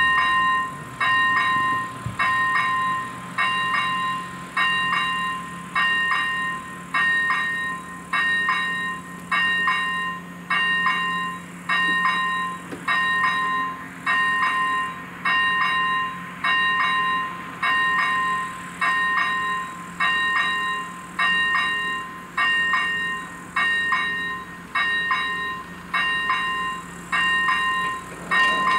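AŽD ZV-01 electric level-crossing bell ringing about once a second, each stroke a bright ring that dies away before the next. It sounds the warning while the crossing's barriers are down and the red lights flash.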